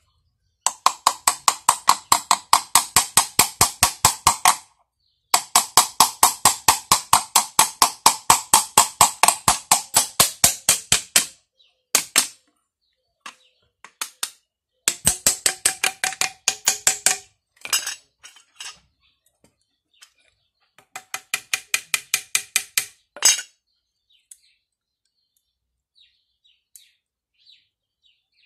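Steel hammer tapping rapidly, about five light blows a second, driving the rear end cover of a Pedrollo JSWm 15MX pump motor back on over its bearing. The taps come in runs of several seconds with short pauses between them, and the later runs ring with a clear metallic tone.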